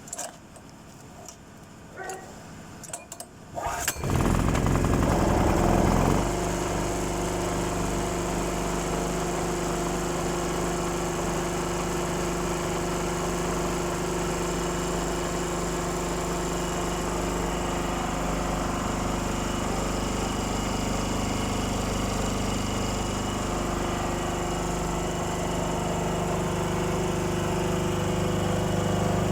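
A few clicks and knocks, then a small petrol generator engine (2.5 kVA) starts about four seconds in, runs louder for about two seconds and settles into a steady run. It is running on its newly fitted carburetor.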